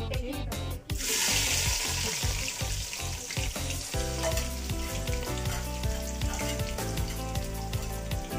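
Sliced onions dropped into hot oil in an aluminium pot, sizzling loudly from about a second in and then frying on at a steady sizzle. Background music plays underneath.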